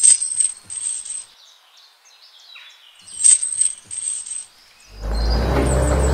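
Small metal chain clinking and jingling in two short bursts as it is handled. About five seconds in, a louder steady sound with a low hum starts.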